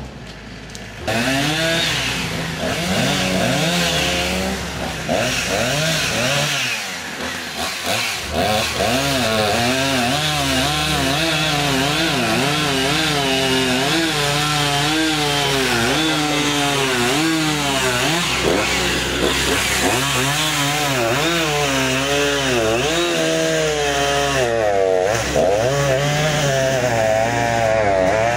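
Two-stroke chainsaw running loudly, its engine speed constantly rising and falling as it cuts through wood. It starts about a second in and eases off briefly around seven seconds before picking up again.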